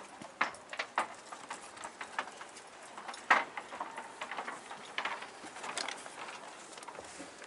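Irregular light taps and clicks, the loudest a little over three seconds in: footsteps and small knocks of someone walking along a yacht's fibreglass side deck.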